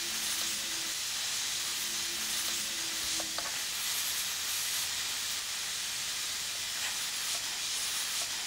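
Steady hiss of hot nitrogen gas blowing from a nitrogen plastic welder's nozzle as its shoe tip smooths a polyethylene weld.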